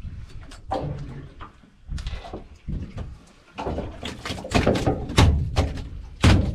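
Halibut thudding and slapping against a boat's deck as it is handled: a string of heavy thumps and knocks, sparse at first and coming thick and fast in the second half, the loudest just before the end.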